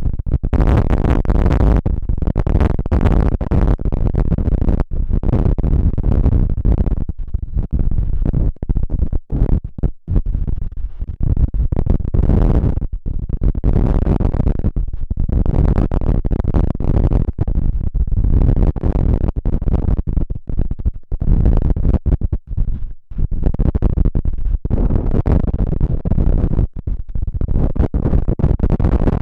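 Strong gusty wind buffeting the microphone: a loud, low rumbling noise that cuts in and out irregularly.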